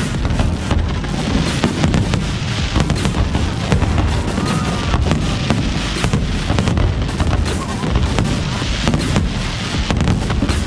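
Fireworks display going off in a dense, unbroken run of bangs and crackling bursts over a low rumble, with music playing along.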